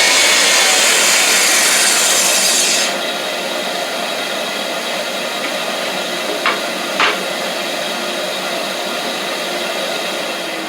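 Shopsmith table saw ripping a wooden strip; the cut ends about three seconds in, and the saw keeps running free with a steady hum. Two light knocks come about six and seven seconds in.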